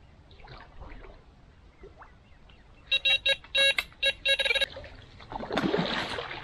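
Carp-fishing bite alarm beeping in a fast, broken run of loud tones for about a second and a half, signalling a take as a fish pulls line off the rod. A short rushing, rustling noise follows near the end.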